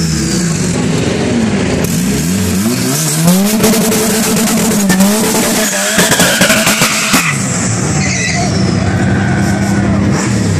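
Turbocharged 1984 Nissan 720 pickup engine revving up and down several times during a drag-strip burnout, the rear tyres spinning and squealing on the wet track.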